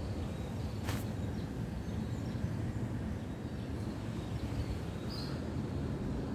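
Steady low outdoor rumble, such as wind on the microphone or distant traffic. A short sharp rustle comes about a second in, and a faint bird chirp about five seconds in.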